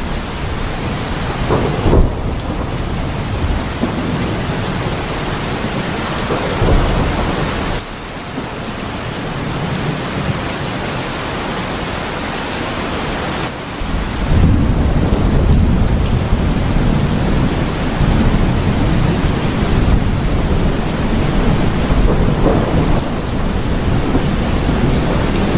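Heavy rain falling steadily, with thunder: a sharp crack about two seconds in, and a deep rolling rumble that swells up about halfway through and keeps going under the rain.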